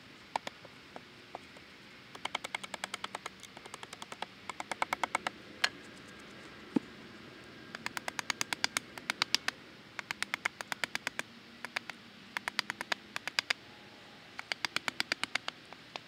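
A hand tool working on a log: runs of rapid, evenly spaced clicks, about ten a second, each run a second or so long with short pauses between, and a few single knocks.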